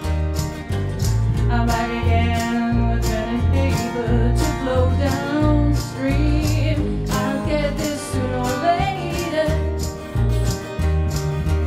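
Live acoustic country-style band: a woman singing lead while jingling a tambourine on the beat, over strummed acoustic guitar and plucked upright bass.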